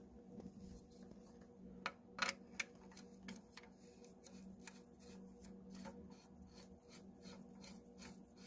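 Faint small clicks and light metal ticks as a suppressor is screwed onto a lever-action .22 rifle's threaded muzzle, with a few sharper ticks about two seconds in, over a steady low hum.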